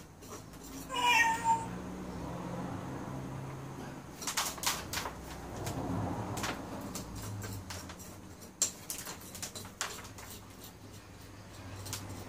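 A domestic cat meows once, briefly, about a second in. From about four seconds on come irregular small clicks and scratches of a fork-rake combing soil out of a tamarisk bonsai's fine roots.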